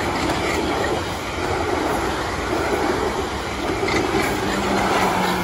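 Passenger multiple-unit train passing close by at speed: a steady rush and rumble of wheels on rail, with a faint steady low hum in the last second or so.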